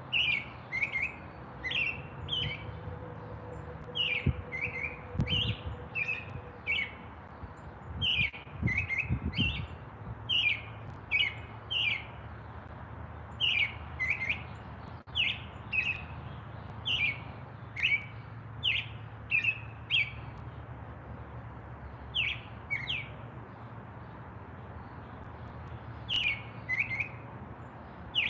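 Birds chirping: short, quick downward-sliding chirps, often in pairs or small clusters, repeated about every second, over a faint low hum.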